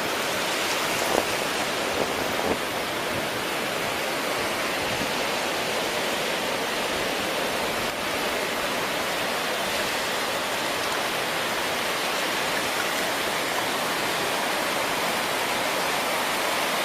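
Steady rushing hiss of wind-driven surf, with a few brief bumps in the first few seconds.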